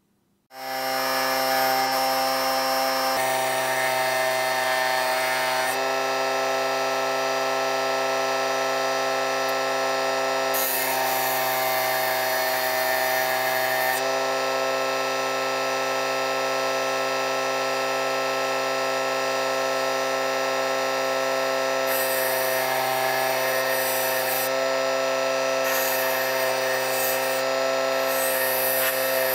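Small 24 V 775 DC motor spinning a small abrasive disc in a drill chuck with a steady whine. Bursts of grinding hiss come and go as a thin rod is held against the spinning disc, most of all in the second half.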